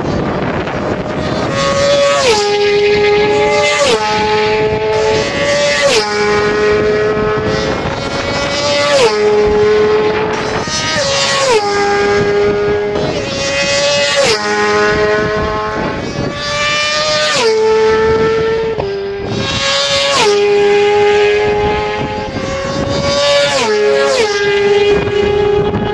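Road-racing motorcycles passing at full speed one after another, about a dozen times. Each engine note rises slightly as the bike approaches and drops sharply in pitch as it goes by.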